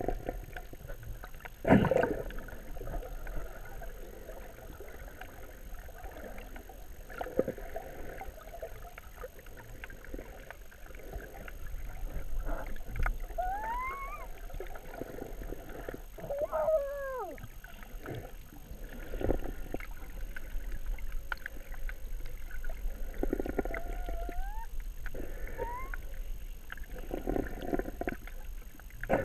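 Muffled underwater water noise around a submerged GoPro housing: uneven sloshing and gurgling with scattered knocks, a sharp knock about two seconds in, and a few short rising squeals later on.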